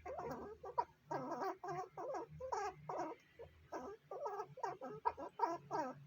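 A squirrel calling in a rapid series of short, pitched squeaky calls, about two to three a second, each bending in pitch.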